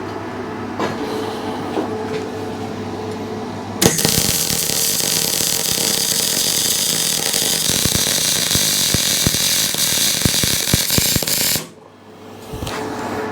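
Arc welding steel plate: a loud crackling hiss starts suddenly about four seconds in, runs about eight seconds and stops abruptly, with a steady low hum before it.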